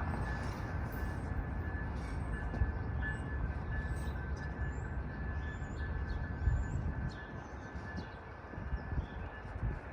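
Amtrak Blue Water passenger train rolling through with a steady low rumble, easing off in the last few seconds.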